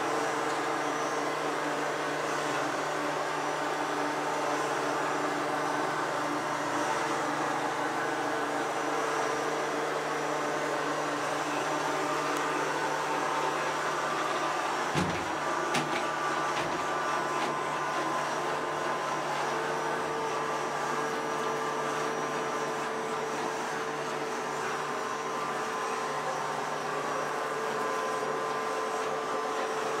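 Taurus Striker Mini robot vacuum cleaner running on carpet: a steady motor hum with the whir of its side brushes. Two short knocks about halfway through as it runs into the wall.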